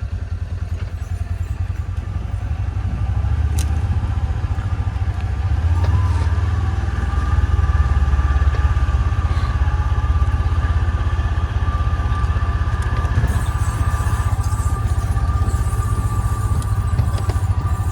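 Small off-road vehicle's engine running steadily as it drives downhill over rough trail: a low steady drone with a thin, steady whine above it, getting louder a few seconds in.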